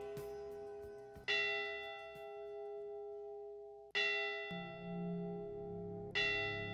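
A church bell tolling slowly, struck three times about two and a half seconds apart, each strike ringing on and fading; a memorial toll for the ship's 29 crew. A low steady tone joins in after the second strike.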